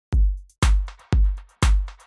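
Electronic intro music: a drum-machine beat with a heavy kick drum twice a second and lighter hi-hat ticks between the kicks.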